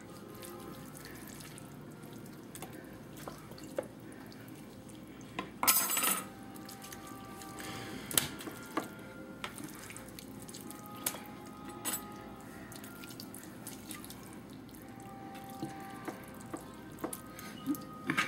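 Hands working an olive oil and butter mixture onto raw turkey wings in a metal roasting pan: wet squishing and slapping of the meat, with a few light knocks against the pan and a louder wet burst about six seconds in.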